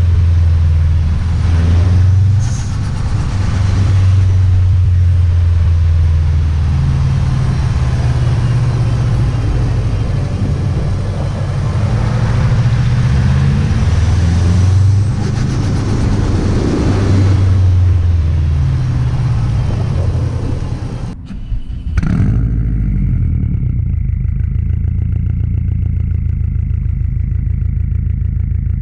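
Subaru WRX STi's turbocharged flat-four engine and exhaust under hard driving, the engine pitch climbing and falling again and again as it revs and shifts through gears. About 21 seconds in the sound drops out briefly and jolts back, then settles into a steadier low engine note.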